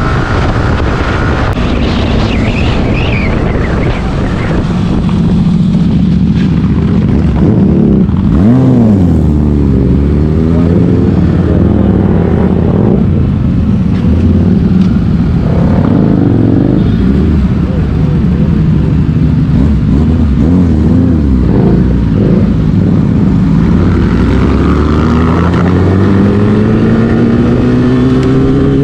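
Motorcycle engine running at speed, its pitch dipping and rising with throttle and gear changes, then climbing steadily near the end as the bike accelerates.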